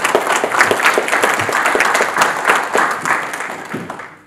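Audience applauding, a dense mass of clapping that thins out and fades toward the end.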